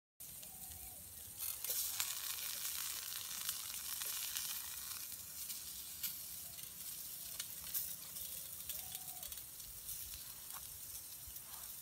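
Onion and tomato slices sizzling on a hot metal sheet over campfire embers: a steady hiss with small crackles, growing louder about a second and a half in.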